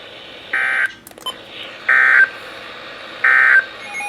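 Three short bursts of NOAA Weather Radio SAME digital data tones, each about a third of a second long and evenly spaced, with a brief click after the first. These are the end-of-message bursts that close a broadcast warning, heard over a steady radio hiss.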